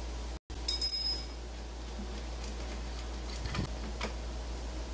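Metal parts of a circular saw's blade assembly clinking lightly as they are loosened and handled during blade removal, with a short high metallic ring about a second in.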